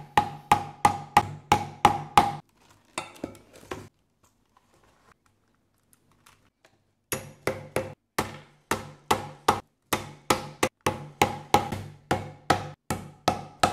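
Metal hammer setting rivets through leather and backpack strap: quick, even blows about three a second, each with a short ring. The blows stop for about three seconds in the middle, then start again.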